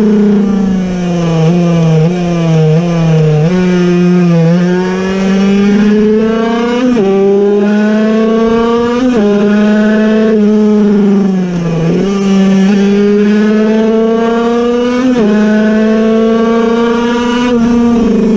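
Puch Cobra 50cc air-cooled, piston-port two-stroke single engine racing at high revs, heard from on board. The high engine note climbs and then drops sharply again and again.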